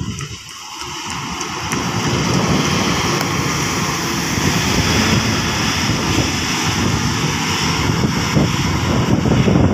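Intercity coach's diesel engine pulling hard as the bus climbs past close by. The rumble swells about two seconds in and stays loud as the bus pulls away up the grade.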